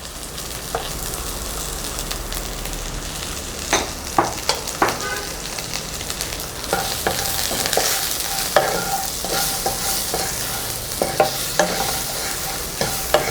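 Garlic cloves, small onions and dried red chillies frying in sesame oil with a steady sizzle as the garlic browns, stirred in the pan with repeated scrapes and knocks of the utensil against the metal.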